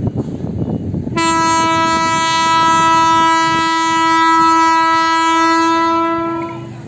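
Horn of a WAG-12B electric freight locomotive sounding one long, steady blast of about five seconds, starting about a second in, over the low rumble of the passing train.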